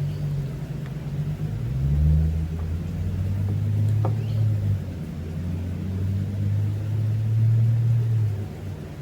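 A low, steady engine-like hum with a few pitched lines, dropping in pitch and growing louder about two seconds in, then fading near the end, with a few faint clicks.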